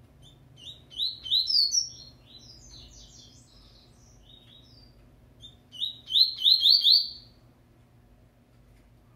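Caged double-collared seedeater (coleiro) singing: two short phrases of quick, rising chirps a few seconds apart, the second ending with a run of four loud, even notes.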